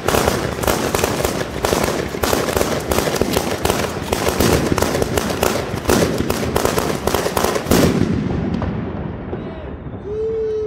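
A traca valenciana, a long string of firecrackers laid on the ground, exploding in rapid, continuous succession, with louder bangs about six and eight seconds in. The firecrackers stop about eight seconds in and the noise dies away. A short high call from a voice is heard near the end.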